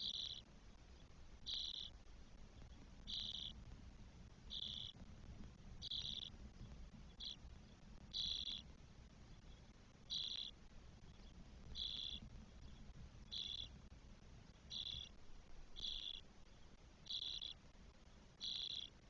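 Spotless starling nestlings giving short, raspy begging calls, repeated about once every second and a half.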